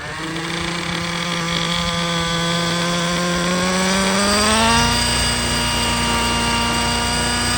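Nitro (glow-fuel) engine of an RC model helicopter running steadily, then rising smoothly in pitch about three to five seconds in and holding at the higher speed.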